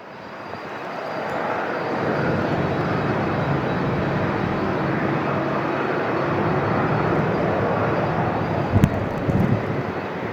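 Airbus A350-900's Rolls-Royce Trent XWB jet engines on landing approach: a steady jet roar that swells over the first couple of seconds and then holds. A few short low thumps come near the end.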